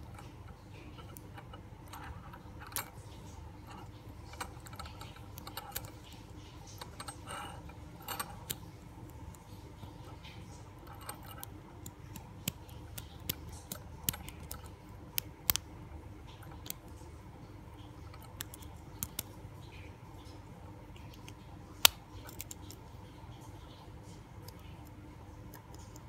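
Hook pick and tension wrench working the keyway of an Abus 64TI/50 padlock: scattered light metallic clicks and scrapes as the pins are picked, irregular, the sharpest about 22 seconds in, over a low steady hum.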